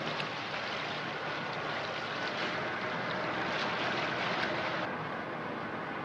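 Sea water rushing and splashing along the hull of a shrimp-fishing cutter underway, with wind on the microphone and a steady low engine hum underneath. The highest hiss drops away suddenly near the end.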